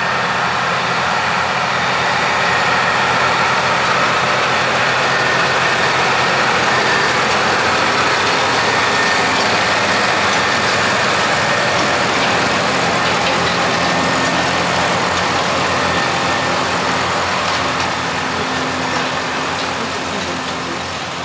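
An engine running steadily at an even speed, easing a little quieter near the end.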